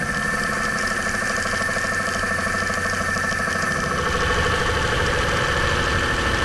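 Dry rough turning of a cast iron brake rotor blank with ceramic inserts on a DN Solutions SMX 3100ST mill-turn: the heavy part spinning in the chuck while the tool cuts steadily along the outside diameter, giving a steady high whine over a low rumble.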